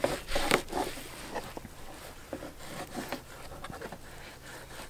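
Fillet knife slicing and scraping along a bluefish fillet's skin on a plastic cutting surface as the skin is separated from the meat: a run of soft scrapes and light clicks, busiest in the first second and softer after.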